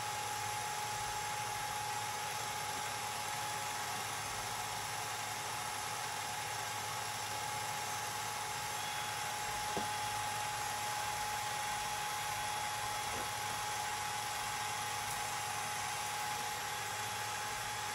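8mm film projector running: a steady mechanical whir with a constant tone held through it.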